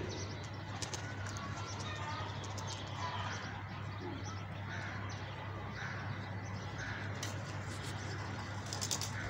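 Birds calling faintly, short chirps scattered throughout, over a steady low hum.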